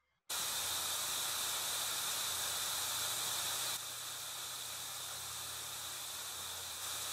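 Steady static hiss with a low hum underneath, cutting in abruptly and dropping a little in level about halfway through: line noise while a telephone call is being put through.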